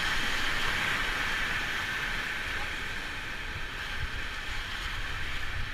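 Rushing river water, a steady hiss, with an irregular low rumble like wind buffeting the microphone.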